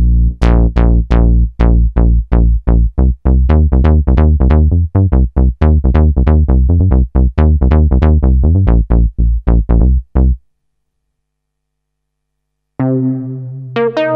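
Novation Peak synthesizer playing its 'Monosynth Bass' preset: a fast run of short, deep bass notes, each with a bright attack that quickly closes down, their brightness shifting as the filter cutoff knob is turned. The run stops about ten seconds in, and after two seconds of silence the next preset, 'Jekyll', starts with held, sustained tones.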